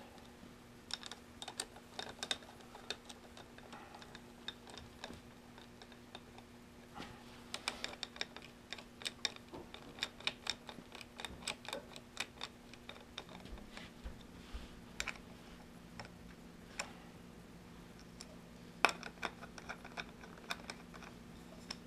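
Scattered light metallic clicks and taps of hand tools and bolts, some in quick runs, as the clutch cover bolts on a Suzuki DR-Z400S are threaded in and run down close but not yet tightened.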